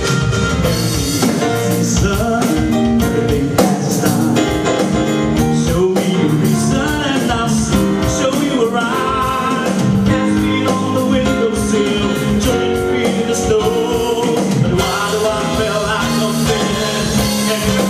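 Live band playing a rock song: drum kit, guitar and other instruments, with a voice singing or humming melody lines over them.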